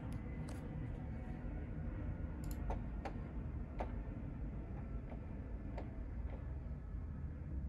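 Canon PIXMA MG6220 inkjet printer's mechanism clicking while it is processing: about ten sharp clicks at uneven intervals over a low steady rumble.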